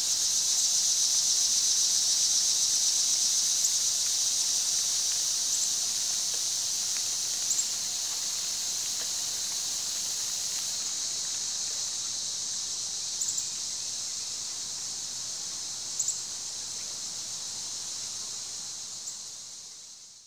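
Rain Jet 415C brass pop-up spray sprinkler hissing steadily as its wobbling stem throws water out, with a few faint ticks. The hiss slowly weakens and dies away at the very end as the spray stops.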